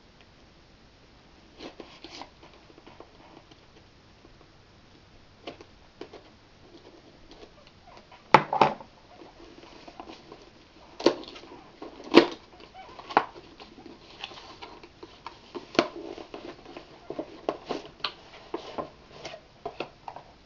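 Small knife cutting open a cardboard box, with irregular clicks, scrapes and rustling of cardboard and packaging, and a few sharper knocks as the box is handled.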